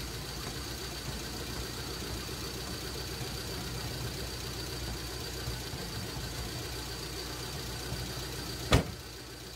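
Suzuki Esteem car engine idling steadily, with one sharp knock near the end.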